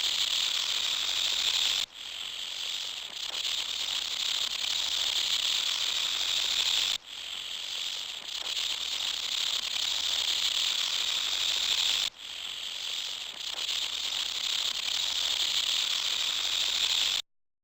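Dense, steady insect buzzing, high-pitched, as from a chorus of cicadas or similar insects. It breaks off and starts again abruptly about every five seconds, then cuts off suddenly near the end.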